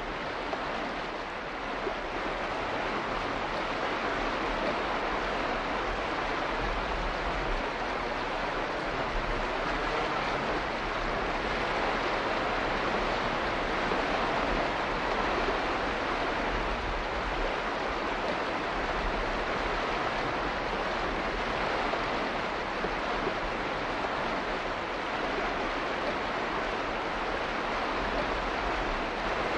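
Steady rushing-water ambience: an even, unbroken hiss with no separate drops, splashes or other events.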